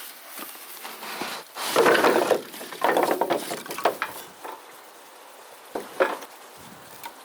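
Dishes and cooking utensils clattering: two bouts of knocking and scraping about two and three seconds in, then a few single sharp clicks near the end.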